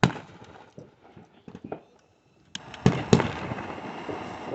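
Fireworks going off: a sharp bang right at the start, then a few more sharp bangs about three seconds in, followed by about two seconds of steady hissing.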